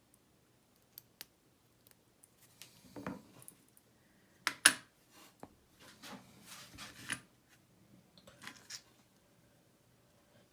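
Small metal parts of a disassembled Goal S pin tumbler lock clicking and clinking as they are handled, in scattered short taps with the sharpest click about halfway through.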